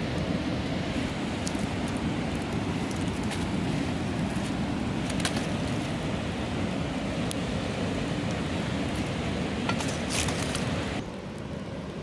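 Wood campfire burning, with a few sharp crackles and pops over a steady rushing noise. The rush drops somewhat about a second before the end.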